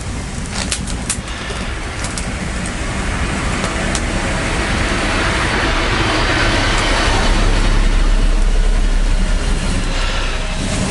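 A road vehicle passing close by, its noise and low rumble swelling to the loudest point about seven or eight seconds in and then easing off. A few sharp clicks sound in the first second or so.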